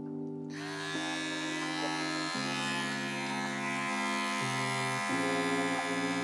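Small cordless electric pet clipper switching on about half a second in and buzzing steadily as it trims the fur between a dog's paw pads. Background music with slowly changing chords plays underneath.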